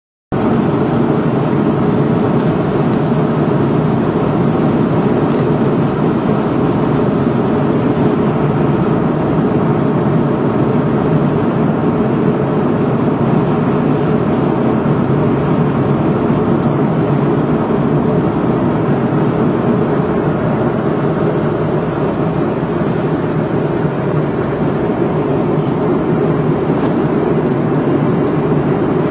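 Steady engine and air noise of an airliner in flight, heard from inside the passenger cabin: an even low roar that does not change.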